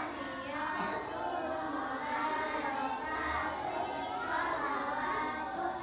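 A group of young children reciting prayers aloud together in a sing-song chant, many voices at once.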